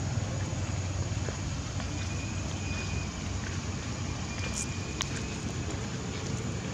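Steady outdoor background noise with a low rumble, and a single sharp click about five seconds in.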